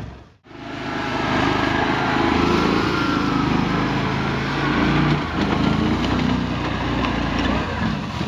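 Small engine of a six-wheel amphibious skid-steer ATV running under load as it drives over rough ground, its pitch shifting a little with the throttle. The sound drops out briefly just after the start.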